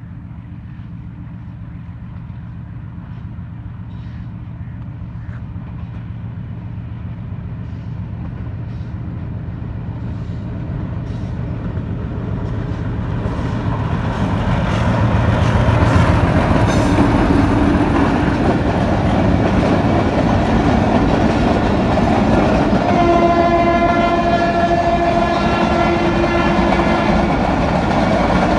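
Hitachi PHA-20 diesel-electric locomotive hauling a passenger train, its engine drone growing steadily louder as it approaches and passes, then the coaches rolling by with wheel clatter. Near the end the locomotive sounds one long horn blast of about four seconds.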